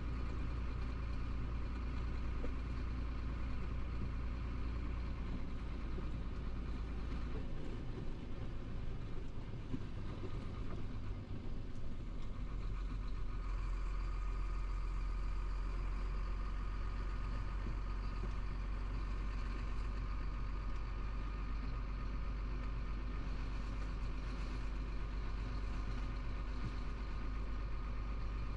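Diesel engine of a Chenglong 375 truck running steadily, heard from inside the cab while driving slowly. The deep low hum drops away for a few seconds about a third of the way in, then returns with a faint higher whine added.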